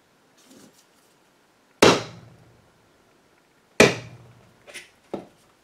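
Small hammer tapping a nail through wet goatskin into the wooden rim of a bodhran frame, fixing the new drum head. Two sharp blows about two seconds apart, then two lighter taps near the end.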